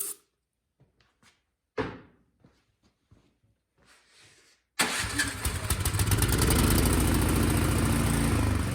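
Craftsman snowblower engine being started: a few knocks first, then about five seconds in the engine catches and runs steadily with a fast even beat. It now runs on a new spark plug; the old one was fouled.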